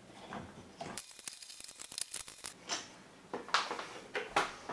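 The Ender 3's metal-cased power supply unit being handled and lifted off the printer: a quick run of small clicks and rattles about a second in, then a few scattered knocks near the end.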